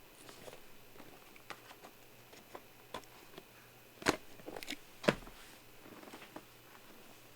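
Trading cards and plastic card holders being handled on a tabletop: scattered light taps and clicks, with two sharper knocks about four and five seconds in.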